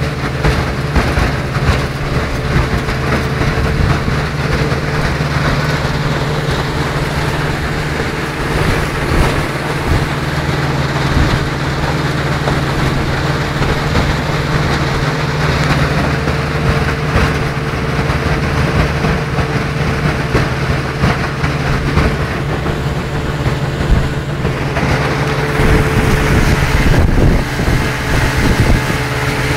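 Vikhr two-stroke outboard motor running steadily with the boat under way, a steady hiss over its low drone.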